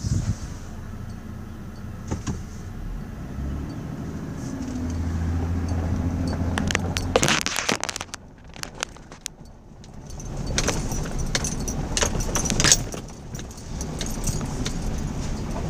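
A four-wheel-drive truck driving slowly up a bumpy gravel road, heard from inside the cab: a steady low engine hum that swells about five seconds in, with two bursts of jingling, rattling clicks as it jolts over the rough surface.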